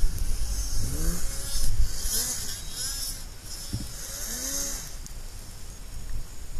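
Snowmobile engines revving in a series of short throttle blips, each rising and falling in pitch, over a steady rushing noise.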